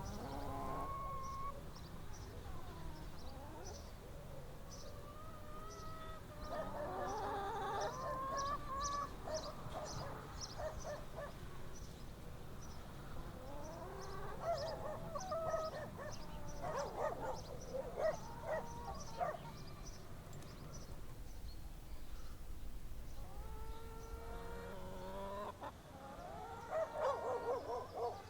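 Farmyard chickens clucking in bursts, with a rooster crowing among them, over a steady low background hum. Small birds chirp in quick high notes throughout.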